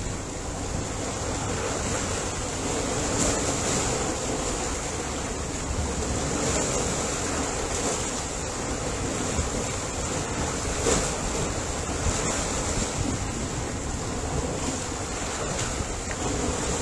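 Ocean surf: waves washing and rushing in a steady, unbroken noise, with no single breaker standing out.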